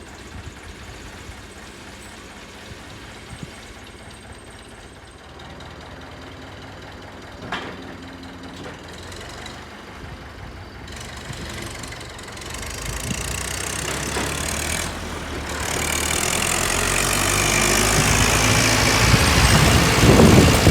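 Tractor engine running steadily, growing louder over the second half.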